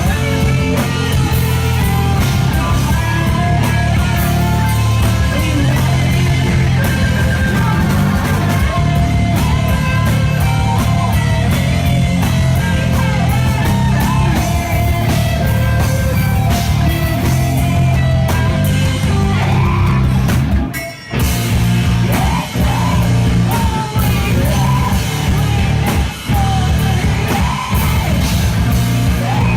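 Live rock band playing loudly, with distorted electric guitar, bass, drums and shouted vocals. The band cuts out for a moment about 21 seconds in, then comes straight back in.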